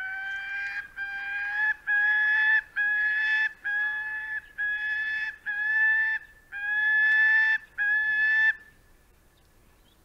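Falcon calling: a series of about nine drawn-out, even-pitched wailing notes, roughly one a second, ending shortly before the end.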